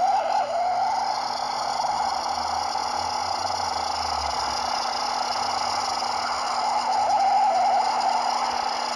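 A 'space sound' of a planet or moon, the kind made by turning spacecraft radio or plasma-wave recordings into audio. It is a steady hissing drone with a mid-pitched whine that wavers up and down, plus a faint low hum underneath.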